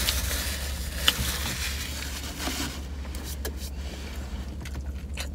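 Paper napkin rustling as hands are wiped, fading out a little under three seconds in, over the steady low hum of a car's cabin. A few faint clicks follow.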